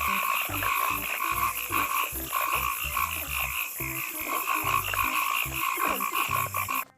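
Frogs croaking: a dense, rapid run of croaks that carries on steadily and then cuts off suddenly near the end, like an edited-in sound effect.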